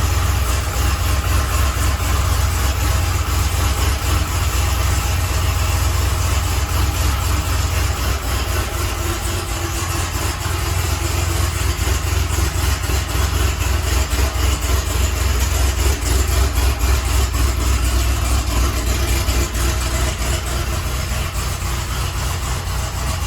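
Car engine running steadily, a loud, even low rumble with wide noise over it.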